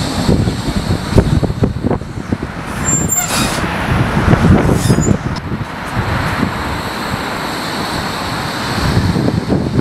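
Bombardier Flexity 2 electric tram running along its track past the stop, a steady rumble mixed with wind buffeting the microphone.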